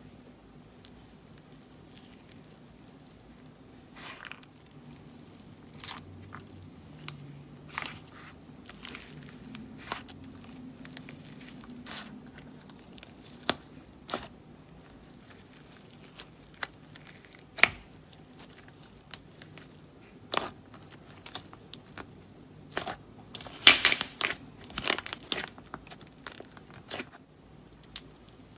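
Yellow clay slime with pineapple sprinkles being poked, pressed and kneaded together with a glossy orange slime by hand: scattered crunchy crackles and sharp pops, growing into a dense run of loud crackling pops about three-quarters of the way through.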